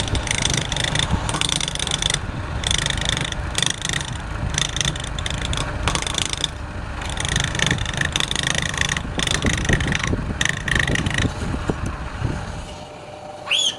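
Wood lathe running with a turning tool cutting into the spinning wood: a scraping hiss that comes and goes in short passes over the lathe's low hum. The hum stops abruptly near the end.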